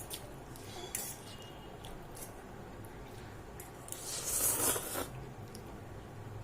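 A person eating spicy noodles: light clicks, and about four seconds in, one loud airy mouth noise lasting about a second, over a steady low hum.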